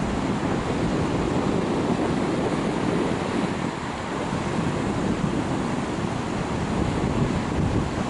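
Surf breaking on a sandy beach, heard as a steady wash of noise, with wind buffeting the microphone.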